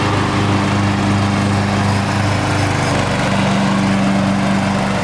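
Poulan riding lawn mower's engine running with a steady drone as the mower drives across the lawn.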